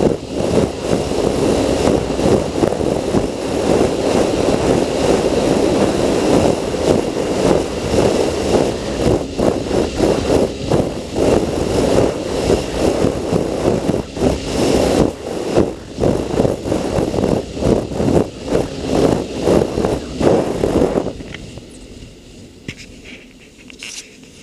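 Sea-Doo jet ski running across the water, its engine mixed with choppy wind buffeting and water noise on the handlebar-mounted camera. About 21 seconds in, the sound drops sharply to a much quieter level.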